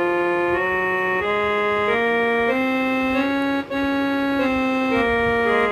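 Casio SA-47 electronic keyboard played on its organ tone (tone 16): held, sustained chords that change about every two-thirds of a second, with one very short break in the middle.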